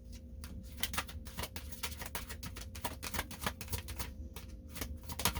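A deck of tarot cards being shuffled: a rapid run of sharp flicking clicks that starts about half a second in and carries on.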